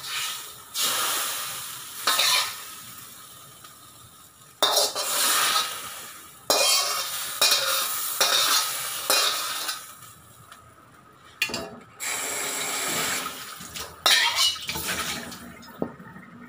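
Metal spatula scraping and clanking against a wok as cooked stir-fried broccoli and carrots are scooped out into a bowl, with some sizzling from the hot pan. It comes as a series of separate strokes, each dying away within a second or so.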